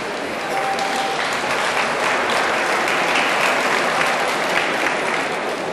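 Arena crowd applauding, swelling about a second in and easing off near the end.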